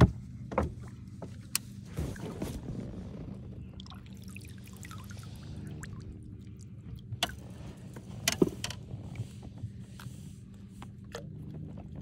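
A largemouth bass splashing and thrashing at the surface beside a bass boat as it is brought in and lipped by hand, with water splashing and dripping and a few sharp knocks against the boat near the start and again about eight seconds in. A steady low hum runs underneath.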